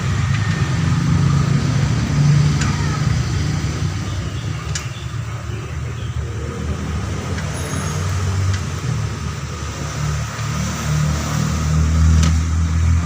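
A vehicle engine running with a steady low hum that swells and eases, with a few sharp clicks.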